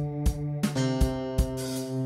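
Instrumental background music with a steady beat, changing chord a little under a second in.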